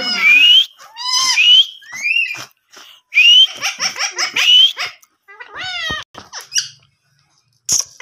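Indian ringneck parakeets calling repeatedly: a string of short, loud, shrill calls, most of them rising in pitch, with a pause of about a second near the end.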